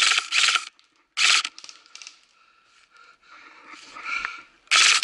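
Short bursts of airsoft rifle fire: one at the start, a brief one about a second in, and another near the end, with softer scraping and rustling between them.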